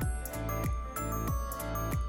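Background music: a bright, gentle instrumental with a steady beat.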